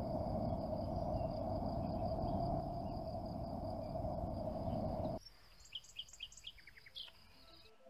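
Outdoor ambience: a steady rushing noise cuts off abruptly about five seconds in. A bird then gives a quick run of short high chirps, over a thin, steady, high-pitched drone.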